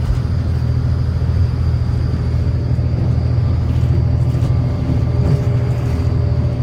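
Road vehicle driving, a loud steady low rumble of engine and road noise with a faint constant high whine.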